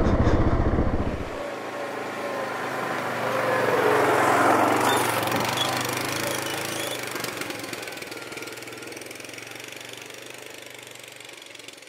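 Yamaha Grizzly 700 ATV engine, heard up close for the first second or so, then from the trailside as the ATV drives past up a dirt trail and moves off, its sound swelling about four seconds in and then fading steadily into the distance.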